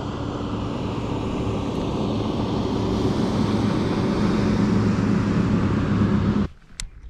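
Motor cruiser's engines droning steadily as it passes at speed across the water, a low hum with some hiss, growing a little louder, then cutting off abruptly about six and a half seconds in.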